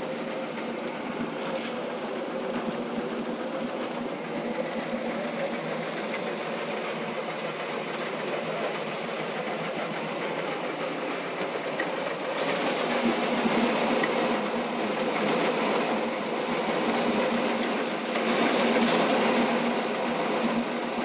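Antique flat-belt-driven feed grinder running while grinding shelled corn: a steady mechanical rattle over a continuous hum, getting louder about twelve seconds in.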